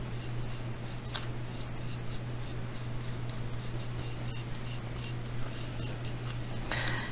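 Fingers smoothing and handling a small polymer clay piece on patty paper: soft rubbing and scraping with light ticks, one sharper tick about a second in and a brief louder rub near the end, over a steady low hum.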